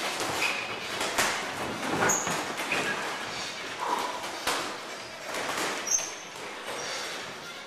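Boxing gloves landing on gloves and padded headgear during sparring: irregular sharp slaps and thuds, with a few short high squeaks between them.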